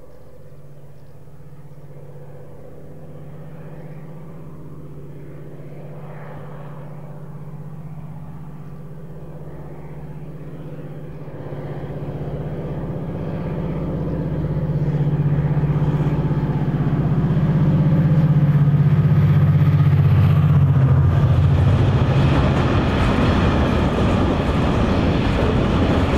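Irish Rail 071 class locomotive's EMD 12-cylinder two-stroke diesel engine drones steadily, growing louder as the train nears and passes. From about 22 seconds in, the engine drone gives way to the broad rumble of ballast hopper wagons rolling past on the rails.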